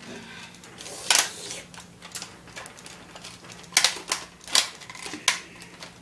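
A series of sharp clicks and taps at irregular spacing, loudest about a second in and again near four seconds, over a faint steady hum.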